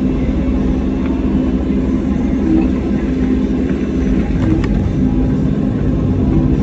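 Excavator diesel engine running steadily under working throttle. Its even hum carries a couple of short higher notes and a few faint clicks a little past the middle.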